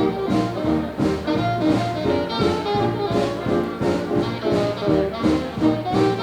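Swing-style jazz music led by brass instruments, with trombone and trumpet, playing steadily.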